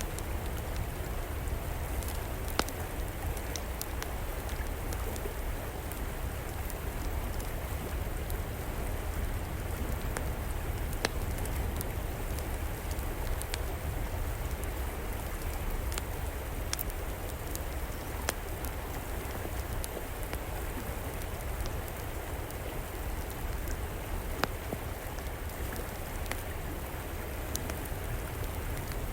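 River water flowing steadily with a low rumble, while a wood fire in an outdoor fireplace gives occasional sharp crackles and pops every few seconds.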